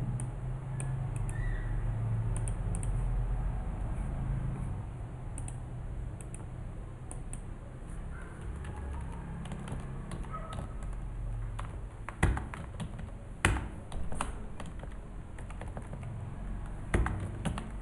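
Computer keyboard typing in scattered keystrokes, with a few sharper clicks in the second half, over a steady low hum.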